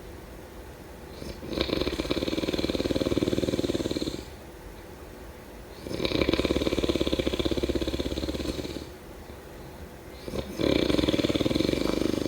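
A sleeping person snoring: three long, rattling snores about four to five seconds apart, with quieter breathing between them.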